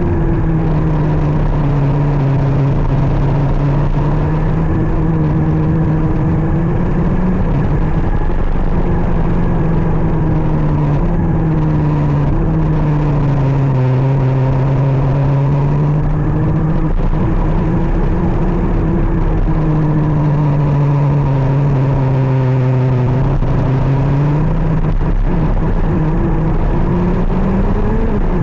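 125 cc two-stroke KZ shifter kart engine at racing speed, its note repeatedly sinking and climbing, with breaks as the gears change.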